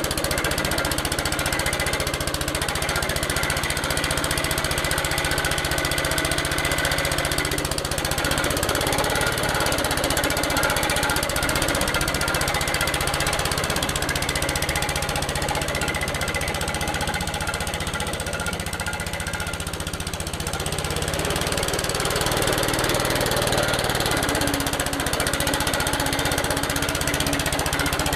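Suffolk Punch 43S petrol cylinder lawnmower running steadily while cutting grass, its engine note shifting slightly about two-thirds of the way through.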